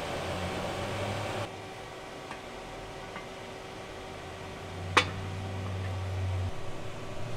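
Steady low hum of a workshop, with a single sharp clink about five seconds in as a cast aluminium piece is set down on an aluminium intake manifold.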